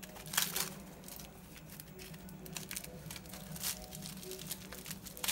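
Food delivery packaging being handled and opened, crinkling and tearing in short irregular rustles, with a steady low hum underneath.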